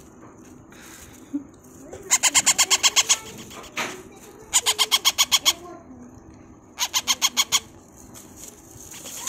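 Parrot nestling giving three bursts of rapid, evenly pulsed chirps, about ten a second, each burst about a second long: the begging call of an unfeathered chick.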